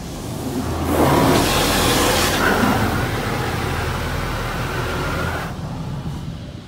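Spray jets of a PDQ LaserWash M5 touchless car wash blasting water over the car, heard from inside the cabin: a loud hiss that builds about a second in, is strongest for a second or so, then carries on a little lower with a faint steady whine and stops near the end. A low steady hum runs underneath.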